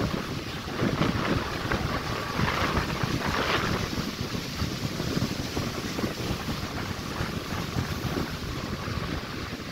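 Wind buffeting the microphone over the steady wash of breaking ocean surf.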